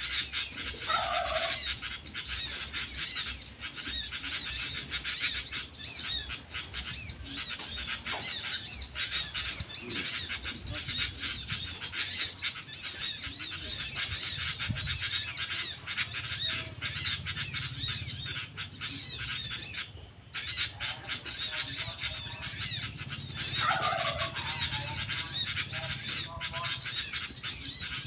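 Small birds chirping continuously in a dense run of short, high, arched notes, several a second.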